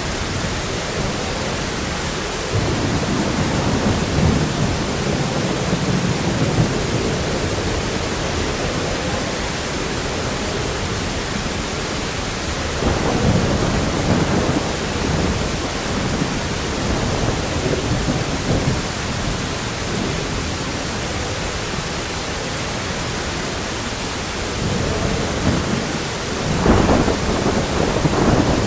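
Thunderstorm sound effect: a steady hiss of heavy rain, with thunder rolling in three times, about a quarter of the way in, around the middle and near the end. The last roll is the loudest.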